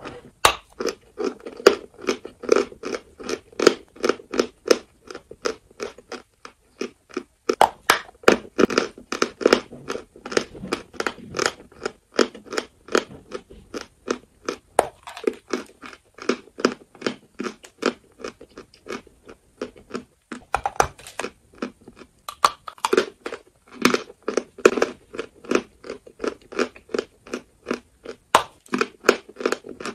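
Chalk being bitten and chewed, close-miked at the mouth: a continuous run of dry, gritty crunches, several a second.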